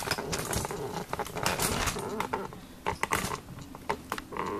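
Hard plastic Lego parts being handled, giving irregular sharp clicks and light rattles.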